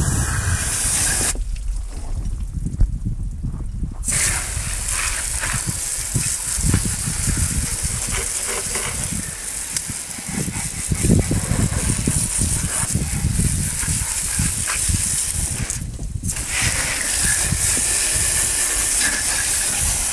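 Garden-hose spray nozzle hissing as a water jet rinses engine degreaser off an engine bay. The spray stops for a couple of seconds about a second and a half in, and again briefly later on.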